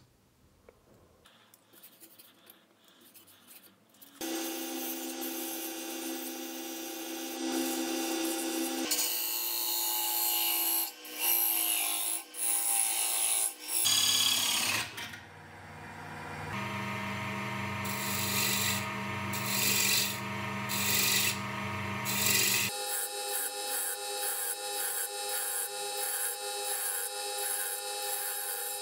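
A wood lathe runs with its motor humming while a hand-held file and a turning tool scrape and cut a spinning wooden bracelet ring. The sound changes abruptly several times at cuts between shots, and the first few seconds are quieter.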